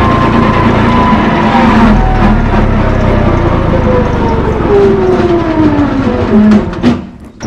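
Brush-clearing machine running loudly, its whine falling steadily in pitch as it winds down, then cutting off near the end.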